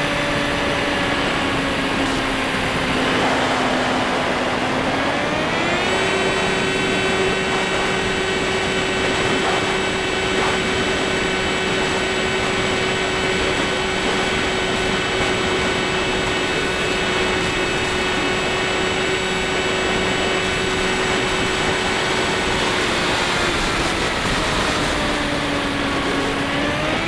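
Skywalker FPV plane's electric motor and propeller whining over heavy rushing wind noise as it climbs. The whine steps up in pitch about six seconds in, holds steady, sags near the end and then rises again.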